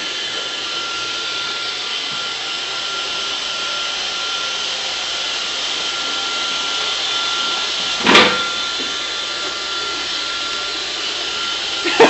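Roomba robot vacuum running steadily, a whirring hiss with a thin steady whine. About eight seconds in, one short loud sound cuts in over it.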